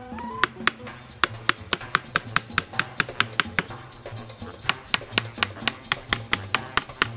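Fast, even hammer strikes, about four a second, driving nails into a new pine board on a wooden porch step, with a short pause near the middle. Background music plays under them.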